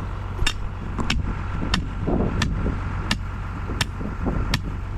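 Electric fence energizer clicking with each pulse, about three sharp clicks every two seconds, over the steady low drone of an idling engine.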